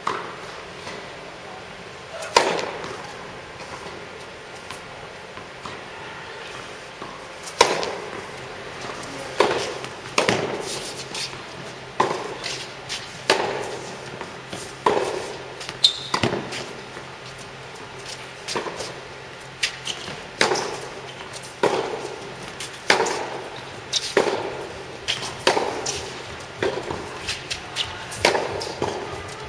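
Tennis balls struck by rackets and bouncing on an indoor hard court. Sharp, echoing pops come a couple of times early on and then settle into a steady rally rhythm, about one every second or so.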